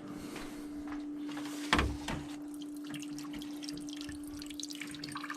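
Leftover water dripping and trickling from the end of a freshly cut copper supply pipe, with one sharp knock a little under two seconds in.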